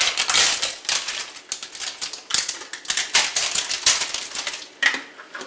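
Plastic wrapper crinkling and crackling in a rapid, irregular run as it is handled and pulled open.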